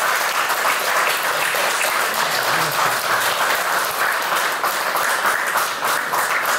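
A small seated audience applauding: dense, steady clapping of many hands.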